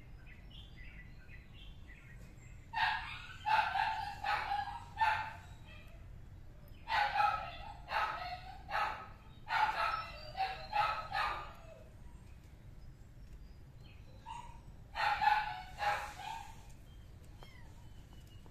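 Kittens meowing: three bouts of short, high-pitched meows in quick succession, the longest bout in the middle.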